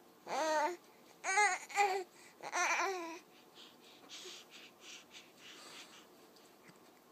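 Two-month-old baby cooing: four short sing-song vowel sounds in the first three seconds, each rising and falling in pitch. These are followed by a few seconds of fainter breathy sounds.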